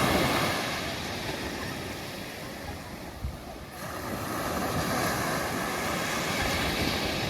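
Steady rushing of sea surf with wind buffeting the microphone, growing a little brighter about four seconds in.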